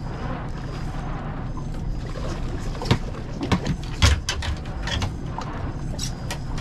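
Splashing and knocks at the boat's side as a big coral trout is landed by hand, a run of sharp hits with the loudest about four seconds in. Underneath is a steady low rumble of wind and sea on the microphone.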